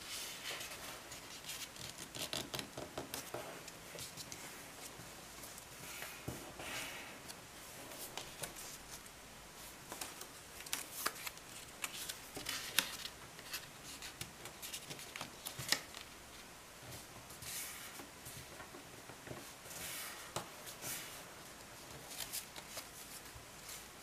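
A sheet of white paper being folded by hand: irregular rustling and crackling, broken by many short sharp clicks and snaps as the paper is bent and creased.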